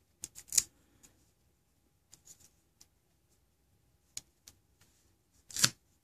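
Duct-tape petals crackling and crinkling as fingers press and wrap them onto a pencil, in a few short bursts with the loudest just before the end.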